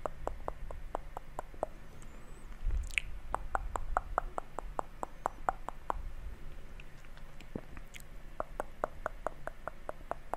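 Close-miked ASMR mouth sounds: quick, even, wet clicks at about four or five a second, in three runs with short pauses between. A soft low thud comes about three seconds in.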